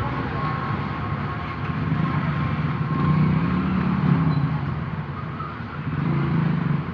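Road traffic: motor vehicle engines running and passing, a low hum that swells and fades.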